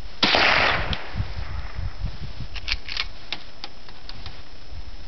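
A single .22 rifle shot about a quarter second in, dying away over about half a second. About two seconds later comes a quick run of sharp metallic clicks.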